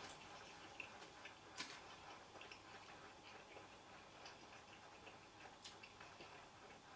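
Near silence: quiet room tone with a few faint, irregularly spaced clicks.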